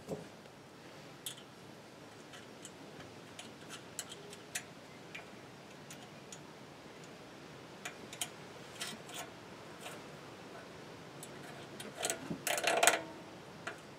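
Scattered light clicks and taps of pipe fittings and hose being handled and fitted onto a small engine's carburetor intake, with a louder flurry of clinks near the end.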